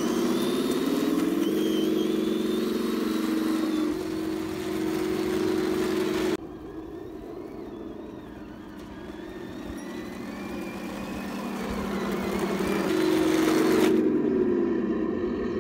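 Tamiya 1/16 Leopard 2A6 RC tank running, its onboard sound unit playing a simulated tank engine note that steps up and down in pitch. About six seconds in the engine note cuts off suddenly, leaving a quieter whine for several seconds before a steady engine note builds back up near the end.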